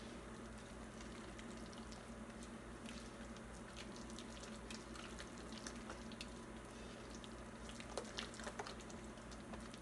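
Spatula stirring a thick almond-flour and pumpkin batter in a glass bowl: faint wet squishing with light clicks against the glass, a few louder clicks about eight seconds in, over a low steady hum.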